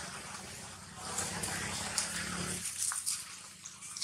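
Dry leaf litter rustling and crackling under a baby monkey moving about, over a low steady hum that stops about two and a half seconds in.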